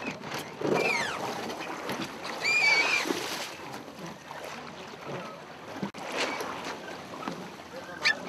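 Splashing water and wind around a Tornado catamaran being brought in to the slipway, with short high-pitched sliding cries about one and three seconds in.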